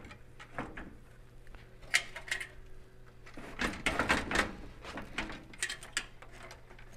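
Scattered light clicks, taps and rustles of wires and connectors being handled inside a furnace's sheet-metal electronics tray, busiest around the middle, over a faint steady hum that stops about halfway through.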